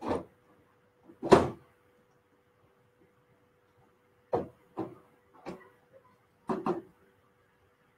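A series of about six separate knocks and clunks of hard objects being handled, the loudest about a second and a half in and several more close together later on, over a faint steady hum.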